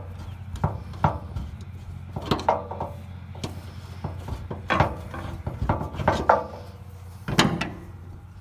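Flathead screwdriver clicking and scraping against seized screw heads on a steel tank's pickup-line plate: a string of sharp metal clinks and knocks, a few ringing briefly, over a steady low hum.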